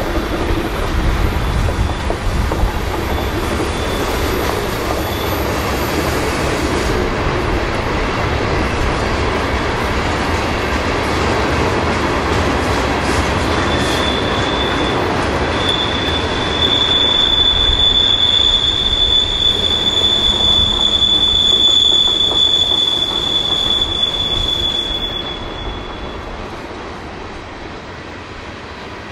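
Train rolling past on the rails with a steady rush of wheel and rail noise. About halfway through, a high, steady wheel squeal sets in. It stops a few seconds before the end, as the train noise fades.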